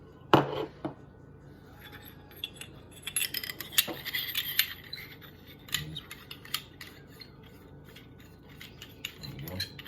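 Clicks and metallic clinks of paintball barrel parts being handled, with one sharp click just after the start and a busier stretch of clinking and rubbing in the middle.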